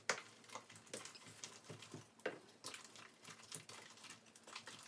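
Wooden spoon stirring macaroni and cheese sauce in a stainless steel saucepan: irregular soft knocks and scrapes of the spoon against the pot, several a second, with the wet squish of the thick mixture.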